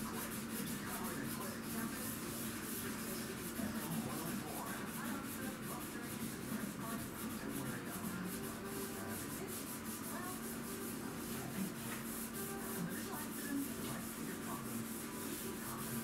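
Scrubbing at a kitchen sink: fast rubbing and scraping strokes with scattered small knocks, over a steady low hum.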